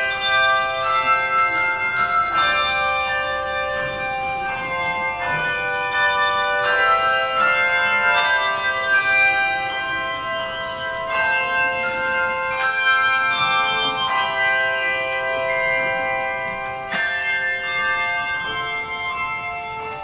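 A handbell choir playing a hymn arrangement: many handbells struck in chords and melody lines, their tones ringing on and overlapping. A louder chord is struck near the end.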